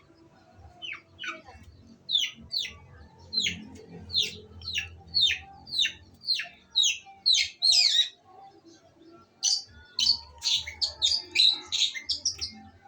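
Female long-tailed shrike (cendet) calling: a run of short, harsh notes, each falling steeply in pitch, about two a second, then a faster, denser burst of calls in the last few seconds.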